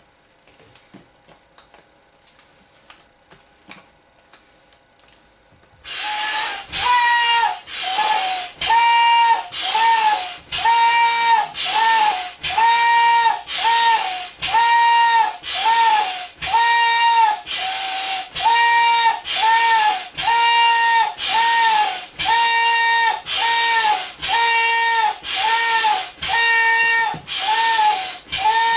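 Hand pump inflating a large vinyl inflatable flamingo through a hose. After about six seconds of faint clicks, steady pump strokes start, about one a second, each pushing air with a whistling hiss.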